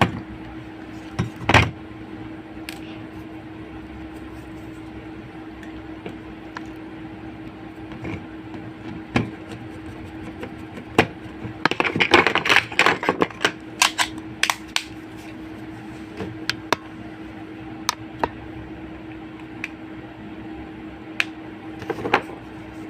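Scattered plastic clicks and taps from a keypad mobile phone being handled and fitted back together, with a flurry of rapid clicks about halfway through, over a steady low hum.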